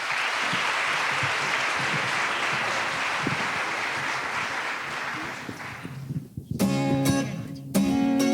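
Audience applauding steadily for about six seconds, then fading out. About six and a half seconds in, a guitar starts strumming chords.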